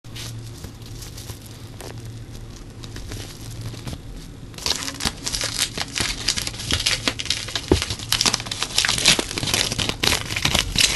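Brown paper packaging being handled, torn open and crumpled by hand. It is faint rustling for the first four and a half seconds, then dense, louder crackling and tearing.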